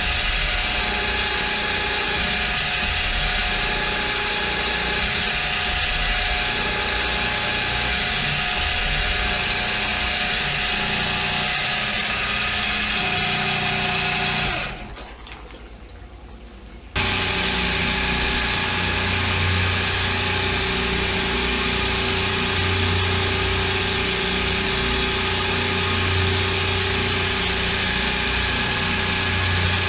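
CNC milling machine running under power with coolant on: a steady mechanical whine and hiss from the spindle, gearbox and coolant. About 15 s in it falls away to a low level, then comes back abruptly a couple of seconds later with a stronger low hum.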